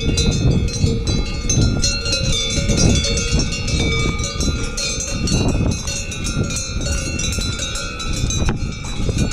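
Many livestock neck bells clanking and ringing together at irregular times, overlapping tones from several bells at once.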